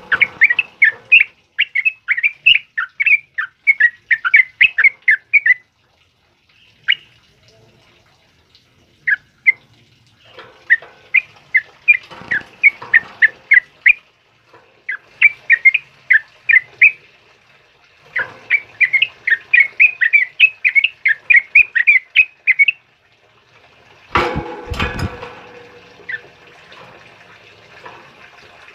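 Yellow-vented bulbul in full song: fast runs of short, sharp chirping notes in bursts of a few seconds, with short pauses between. About 24 seconds in, a brief loud rustling thump.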